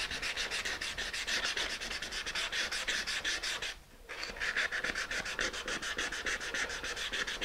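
150-grit sandpaper rubbed in rapid back-and-forth strokes along the edges of a wooden fuselage boom, a quick even scratching rhythm with a short break a little before halfway. The edges are being sanded down because the boom fits too tightly in the wing's slide box.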